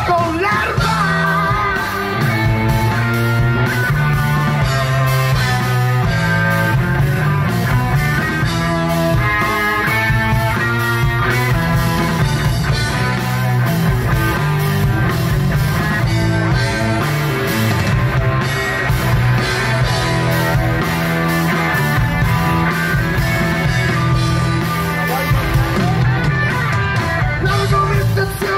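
Live rock band playing: electric guitar, electric bass and a drum kit, with a steady bass line under held guitar notes.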